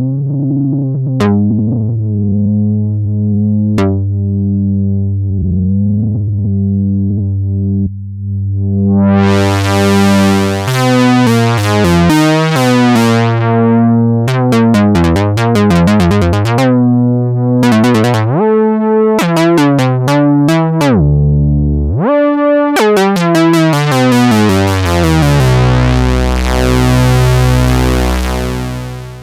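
Softube Model 72 software synthesizer, an emulation of the Minimoog, playing a demo. It begins with low held bass notes, then the filter sweeps open to a bright, buzzy tone and closes again. Deep pitch glides fall and rise near the middle, and it ends on a bright sustained note.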